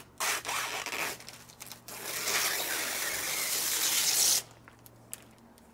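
Protective plastic film being peeled off the glass of a hinged van window: a tearing peel in short strokes at first, then one long steady pull that stops suddenly after about four seconds.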